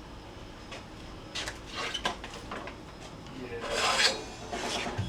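Metal work-rest attachments being handled on a belt grinder, heard as rubbing, scraping and a few light knocks, with a longer sliding scrape about four seconds in.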